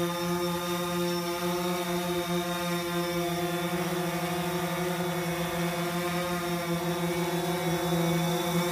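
DJI Phantom 4 drone giving off a steady buzzing hum, one low note with many overtones, whose lowest note flutters rapidly for a couple of seconds near the start.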